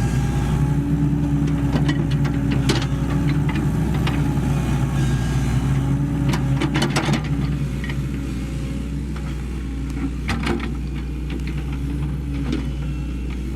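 Sany SY75C excavator's diesel engine running steadily under working load, with sharp metallic knocks about three seconds in, around six to seven seconds, and about ten seconds in. The engine eases off slightly after about eight seconds.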